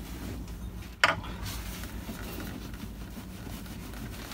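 Rubber fuel hose being twisted and worked by hand on the hose barb of a fuel-water separator, with one short, sharp noise about a second in, over a low steady hum.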